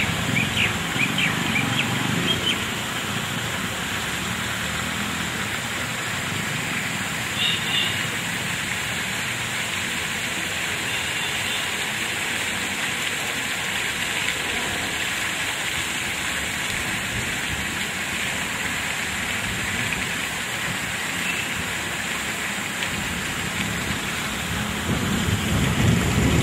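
Steady outdoor background hiss, with a few brief high chirps in the first couple of seconds and again about seven seconds in, and a low rumble that swells near the end.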